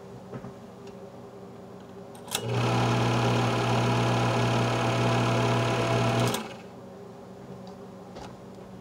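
Super Technicolor 580 instant projector switched on: its motor and mechanism run with a steady low hum and whir for about four seconds, starting suddenly about two seconds in and cutting off.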